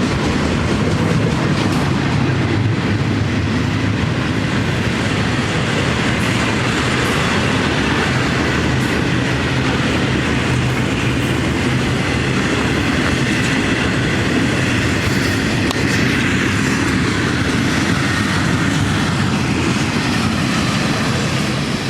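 A train passing close by the track: a loud, steady rumble of its wheels running on the rails.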